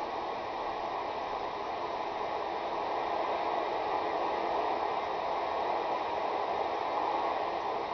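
Cobra 2000 GTL CB base station receiver hissing with steady open-channel static through its speakers: no carrier is coming in, and the signal meter rests at zero.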